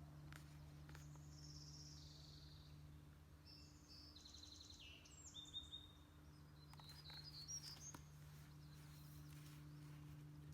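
Faint songbirds chirping, with a couple of short rapid trills near the middle, over a steady low hum.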